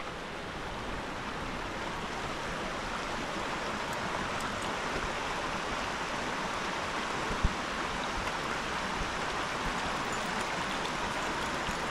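Shallow stream running over rocks, a steady rushing of water. One brief low thump about two-thirds of the way through.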